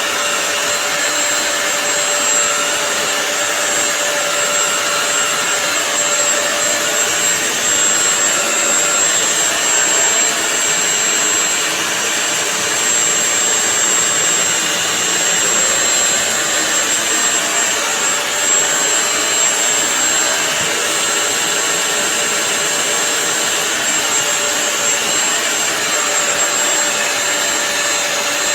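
Bissell CrossWave multi-surface wet-dry vacuum cleaner running steadily: a constant motor whine over a steady rush of air.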